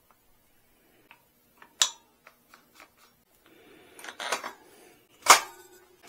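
Metallic clicks and clinks of a wrench and loose front-wheel parts as a motorcycle's front axle and speedometer drive are worked on by hand. There is a scatter of light ticks, a busier clatter around four seconds in, and one sharp metal clack a little after five seconds, the loudest.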